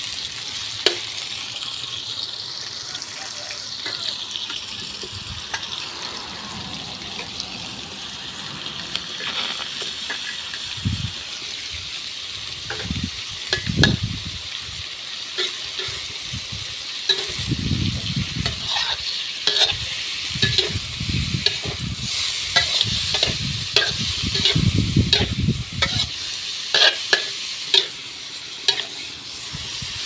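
Pork and mixed seafood sizzling in hot oil in a steel wok as a metal ladle stirs and scrapes them. The ladle clinks and scrapes against the wok, more often and busier in the second half.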